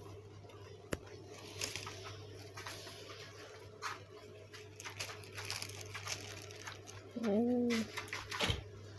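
Thin plastic bag rustling and crinkling in short scrapes as cats move and paw inside it, over a steady low hum. About seven seconds in comes one brief low call that rises and falls.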